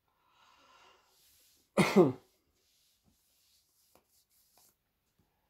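A man clears his throat once, about two seconds in: a short voiced sound that falls in pitch. It follows a faint breath in an otherwise quiet room.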